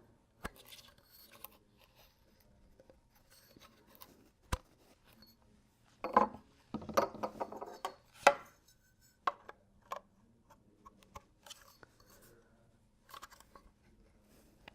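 Hard plastic crate parts being handled and pushed together: scattered clicks, knocks and short scrapes, busiest about six to eight seconds in.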